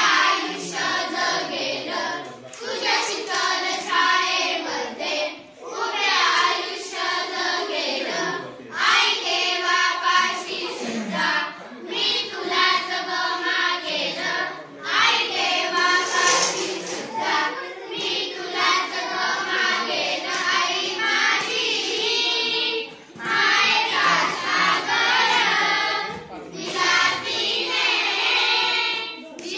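A group of girls singing a Marathi song together in unison, without instruments, in sung lines with brief pauses between them.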